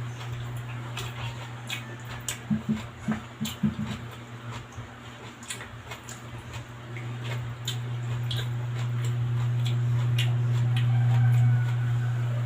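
Close-miked chewing and mouth sounds of someone eating roast pork and rice, with wet clicks and a short run of pulses a few seconds in, over a steady low hum.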